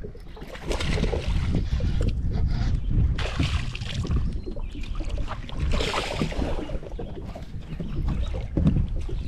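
Splashing from a hooked smallmouth bass thrashing at the surface, in two bursts about three and six seconds in, over a steady low wind rumble on the microphone.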